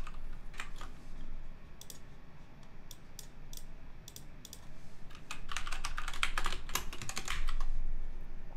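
Typing on a computer keyboard: scattered single keystrokes at first, then a fast run of keystrokes from about five seconds in until shortly before the end.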